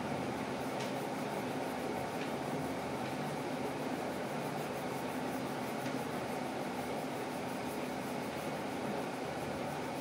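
Steady hum and hiss of a running machine, such as a room fan, at an even level.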